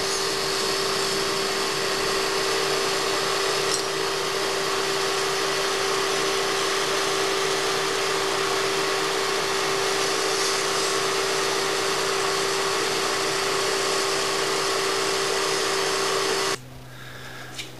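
Metal lathe running steadily, with a constant hum and a hiss of emery cloth held against the spinning Triumph Spitfire rocker shaft, polishing rust and crud off it. The sound cuts off abruptly about a second before the end, leaving a quieter low hum.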